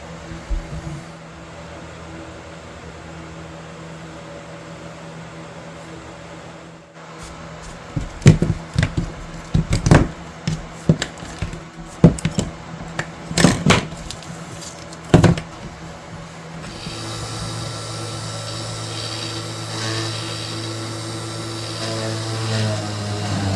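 Workshop tool work: a steady hum, then a run of loud irregular knocks and scrapes, then a small power tool starts about two-thirds of the way in and runs steadily.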